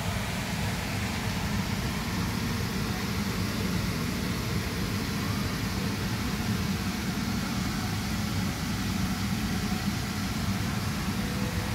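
Steady low rumble with a hiss over it.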